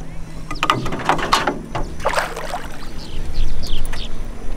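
Hooked peacock bass splashing and thrashing at the water's surface beside the boat, in two bursts about a second apart, over a low steady hum.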